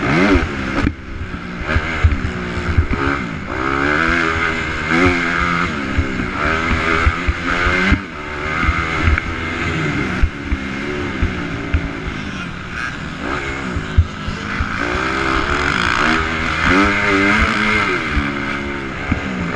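250cc motocross bike's engine revving hard and dropping back over and over as the throttle is opened and closed around the track, with scattered sharp knocks from the bike over bumps and landings.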